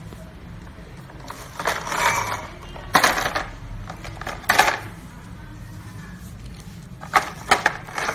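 Hard plastic clacks and knocks from a toy jeep being handled: two sharp knocks in the middle and a quick run of clicks near the end.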